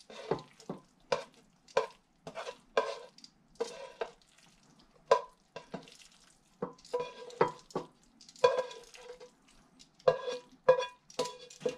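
A cooking utensil scraping and knocking in a frying pan as the noodles and beef are scooped out into a bowl: a long series of short scrapes and taps, many leaving a brief metallic ring.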